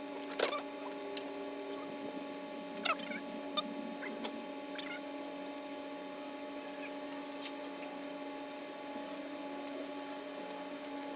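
Scattered clicks and taps from headlight wiring connectors and plastic parts being handled and plugged in, most of them in the first few seconds, over a steady hum.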